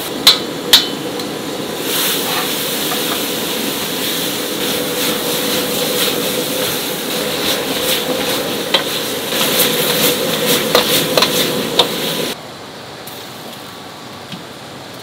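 Food sizzling and frying in a commercial kitchen, with sharp clanks of metal utensils against the pan, two loud ones in the first second. About twelve seconds in it gives way to quieter kitchen background.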